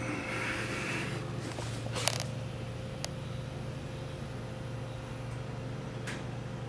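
Steady low electrical or mechanical hum with a faint steady higher tone, a brief hiss in the first second, and a few sharp clicks about two, three and six seconds in.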